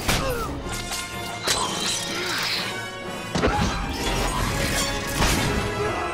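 Orchestral film action score with several heavy crashes and impacts from a superhero fight cutting through it.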